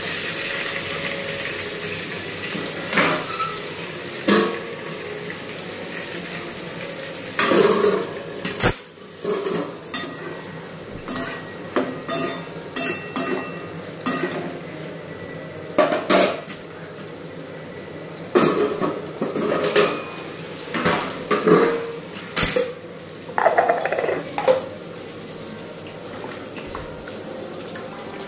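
Steel spatula scraping and clanking against a stainless steel kadai while stirring vegetables frying in oil, with a steady sizzle underneath. The clanks come in irregular clusters through the middle.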